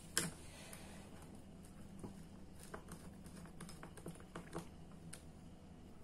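Light clicks and taps of hands working red hookup wire into the screw terminals of plastic motor contactors, with one sharp click just after the start and scattered softer ticks after it.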